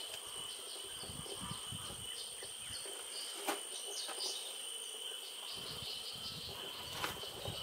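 Insects buzzing steadily in a high drone, with faint short chirps over it. Low rustling and handling noise comes and goes, and two sharp clicks fall about three and a half and seven seconds in.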